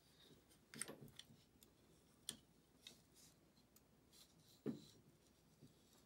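Cold Steel FGX balisong (butterfly knife) with synthetic handles being opened and handled: a handful of faint, scattered clicks and clacks from the handles and latch, the loudest about a second in and again near five seconds.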